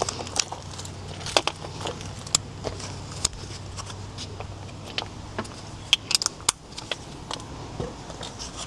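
Irregular light clicks and clinks of hand tools and parts being handled, over a steady low hum.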